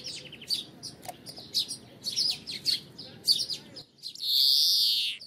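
European greenfinch singing: a run of quick, high twittering notes, then, about four seconds in, one long drawn-out wheezing note lasting over a second, the loudest part.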